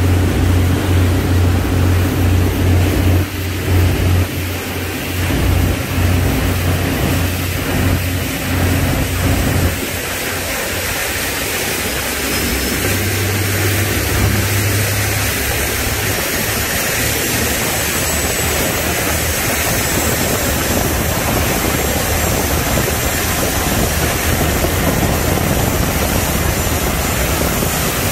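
Motorboats running fast on open water. A steady low engine drone fills the first ten seconds or so. After that it is mostly the rushing of wind and water, with the engine drone swelling back briefly.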